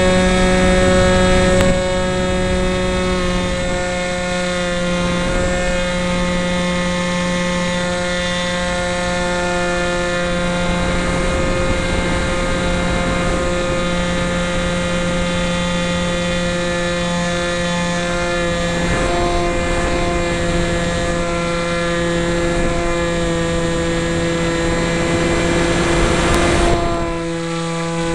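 Electric motor and propeller of a foam radio-controlled F-22 model jet, a steady whine heard close up from a camera on board, with wind rushing over the microphone. The sound drops a little near the end.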